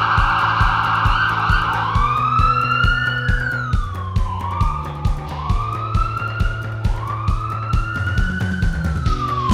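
Ambulance siren: a fast warble for about two seconds, then a wail that rises and falls about every one and a half seconds. A pop song with a steady beat plays underneath.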